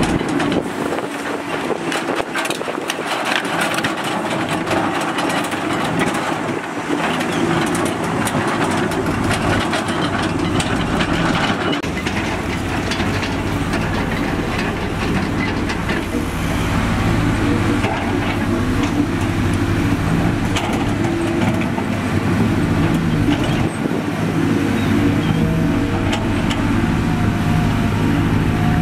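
Heavy diesel construction machinery working, its engines running steadily under load, with scattered clatter and knocks through roughly the first twelve seconds.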